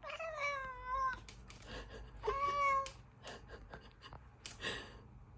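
A cat meowing twice. The first meow is longer and slides slightly down in pitch; the second, about a second later, is shorter and steady. A short breathy puff follows near the end.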